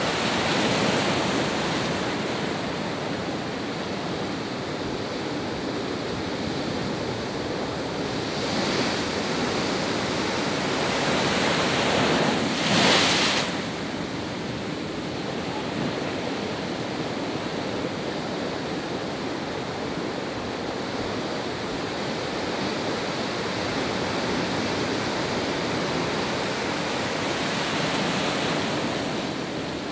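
Heavy storm surf breaking over and around a pier, a continuous rush of churning water with wind. It swells and ebbs, with the loudest surge about halfway through.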